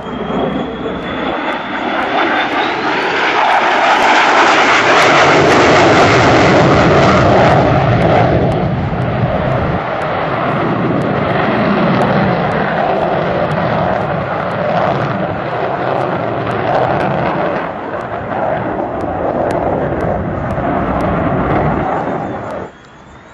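Twin jet engines of an F-14 Tomcat in flight: a loud jet roar that swells over the first few seconds, peaks, then carries on strongly before cutting off suddenly near the end. A faint whine rises in pitch in the first few seconds.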